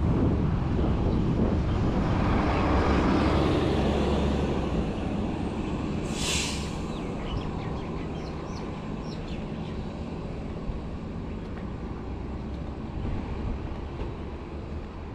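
Street traffic, with a vehicle passing close by and loudest in the first few seconds, then fading. A short hiss comes about six seconds in.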